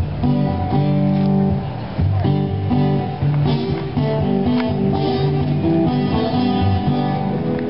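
Guitar music: strummed acoustic guitar playing a run of chords.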